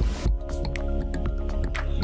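Background documentary score: sustained tones with short plucked or struck notes at an even pulse.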